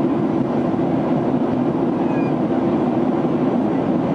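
Steady cabin noise of a Ryanair Boeing 737 after take-off, heard from inside the cabin: a constant low drone of the jet engines with rushing airflow over it.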